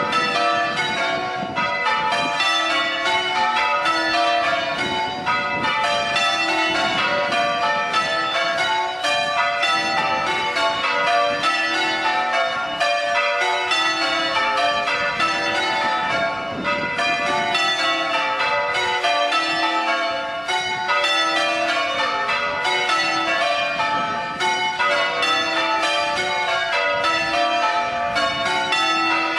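A ring of church tower bells being change rung: the bells strike one after another in a steady, even rhythm, their tones overlapping in continuous ringing.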